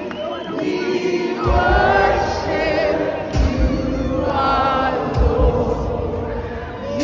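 Many voices singing together in gospel-style worship music, with a few low thumps about two seconds apart.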